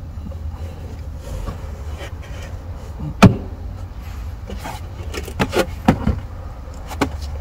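Clicks and one sharp knock from hand work fitting a car's 12V battery and its terminals, over a steady low hum. The knock comes about three seconds in and is the loudest sound; a few lighter clicks follow near the end.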